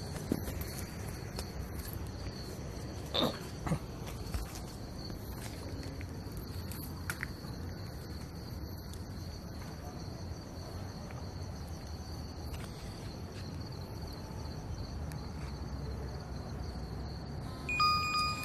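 Steady high chirring of insects over a low background hiss, with two faint clicks a few seconds in. Near the end comes a short electronic alert tone from the phone as the verification SMS arrives.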